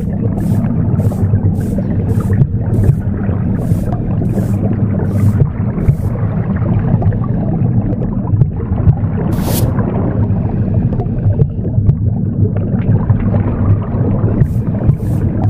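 Broom bristles sweeping in short strokes about twice a second, laid over a steady low whooshing womb sound. The sweeping stops about six seconds in, with one stroke near the middle, and starts again near the end.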